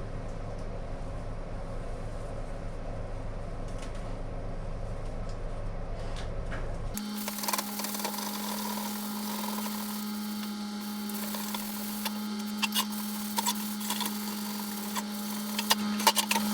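A low steady hum, then, after a cut about seven seconds in, a small electric power tool motor running at a steady pitch with a hiss and scattered taps.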